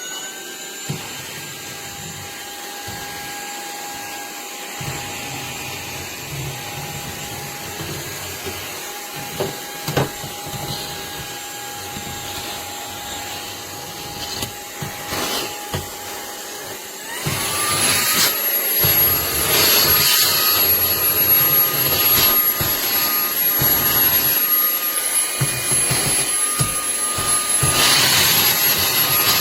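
Fanttik Slim V8 APEX cordless handheld vacuum running with a steady motor whine. About 17 seconds in, the whine rises in pitch and gets louder, then runs on at the higher speed. A few short knocks are heard along the way.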